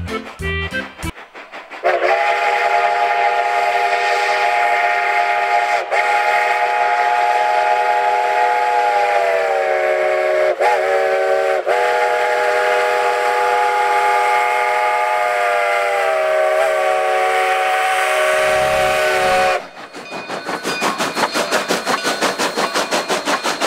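Steam locomotive's chime whistle sounding one long blast of about eighteen seconds, a steady chord of several tones with a few brief dips in pitch. It cuts off near the end, and the locomotive's exhaust takes over in rapid, even chuffs as it passes close.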